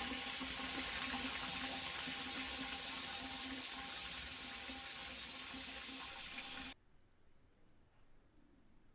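Water rushing from a part 2 diaphragm-type ball float valve, just fitted with new washers, into the cold water tank as it refills. The steady rush eases slightly, then cuts off suddenly about seven seconds in.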